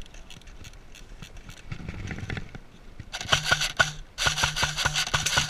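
Airsoft gun mechanism clicking rapidly in two runs, the first about a second long and the second a little longer, each at roughly seven clicks a second over a low hum.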